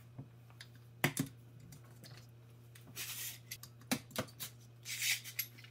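Scattered clicks and knocks from plastic-framed lithium-ion battery modules and a bar clamp being handled, with two brief scraping rustles, over a faint steady hum.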